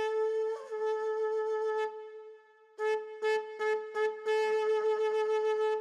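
Conch shell trumpet blown in two blasts of one steady, horn-like note. The first lasts about two seconds and dips slightly in pitch early on; the second begins about three seconds in, is broken off several times in quick succession, then held.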